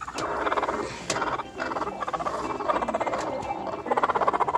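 Broody hens growling on the nest as a hand reaches under them: a grumbling call of rapid pulses in several bursts, loudest near the end.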